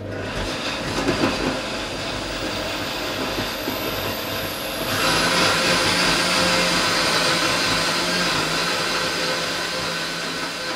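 Countertop jug blender running at speed, a steady whirring noise that gets louder and brighter about five seconds in.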